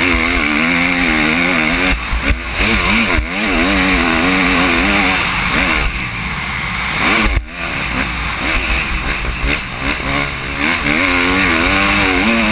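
Motocross bike engine under hard riding on a dirt track, its pitch rising and falling over and over as the throttle opens and closes and gears change, with brief drops in level and a sharp break about seven seconds in. Heavy wind rush on the microphone.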